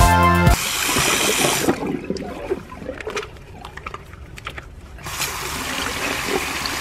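Tap water running into a ceramic washbasin over hands being rinsed, with a steady splashing hiss that starts about five seconds in. Before it come a few light clicks and handling noises at the sink.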